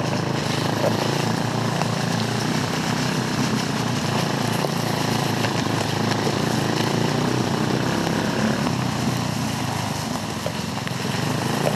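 Off-road go kart's small engine running steadily under way, a continuous drone with the kart rattling over rough ground; the engine is running with bent valves.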